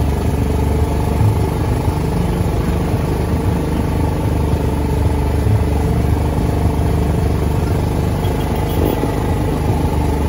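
An engine running at a steady speed, giving a loud, even low drone.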